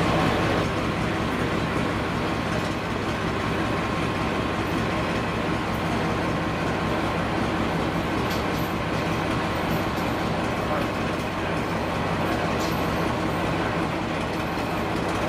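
Class 14 diesel-hydraulic locomotive's engine running steadily at the head of its coaches.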